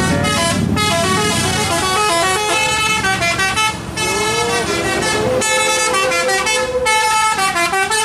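Bus telolet horn playing a quick tune of stepping notes, several pitches at once, over the low run of a bus engine that fades about five seconds in.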